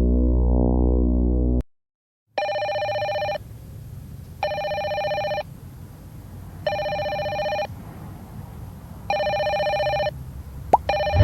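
Synthesizer music drone that cuts off after about a second and a half; after a short silence, a telephone rings with an electronic ring, four rings about two seconds apart, a fifth starting at the end.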